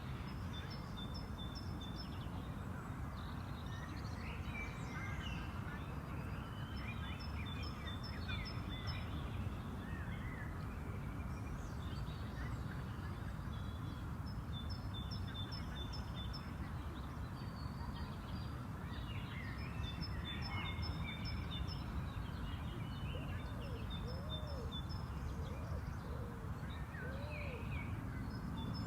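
Outdoor park ambience: a steady low rumble of distant city noise, with several birds chirping and singing over it. One bird repeats short runs of quick, evenly spaced high notes every few seconds.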